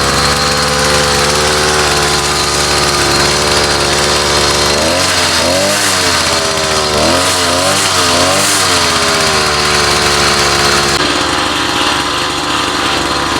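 50cc two-stroke bicycle engine kit running, its throttle blipped so the revs rise and fall three times about halfway through before it settles back to a steady run.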